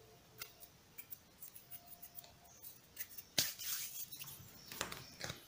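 Faint small clicks, then a brief rustling scrape about three and a half seconds in and another near the end: small handling noises at a worktable.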